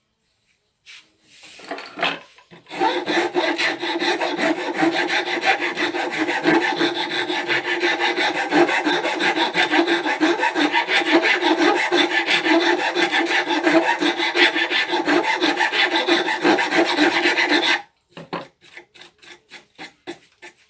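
A hand tool working a piece of wood: a fast, continuous run of scraping strokes that starts about three seconds in and stops abruptly near the end, with a few short scrapes just before and after.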